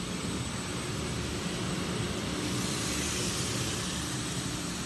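Conveyor-fed industrial sanding machine running steadily, a routed panel passing through on its feed belt. The noise is an even whir with a faint low hum and a high hiss.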